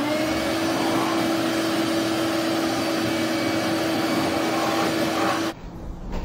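Vacuum cleaner running with a steady whine over a loud rush of air. Its motor pitch rises briefly as it spins up at the start, and the sound cuts off suddenly about a second before the end.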